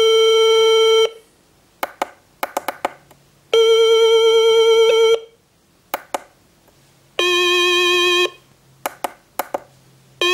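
Franzis MKI-2K16 kit synthesizer beeping square-wave notes through its small built-in speaker: a steady held note, then a note pulsing in volume with tremolo, then lower notes wavering in pitch with vibrato, the last starting near the end. Short clicks of its panel buttons and keys come between the notes.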